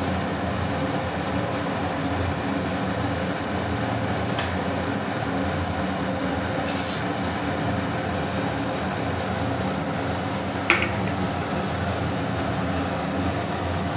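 Cumin seeds frying in hot oil in a pan on a gas stove: a steady sizzle with a low rumble under it. One sharp clink about eleven seconds in.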